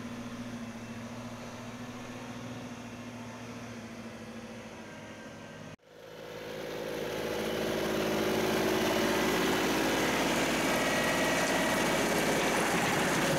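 John Deere 2038R compact tractor's three-cylinder diesel engine running steadily, faint at first. After a sudden break about six seconds in it comes back louder, swelling over a couple of seconds, as the tractor drives with its loader bucket full of stone.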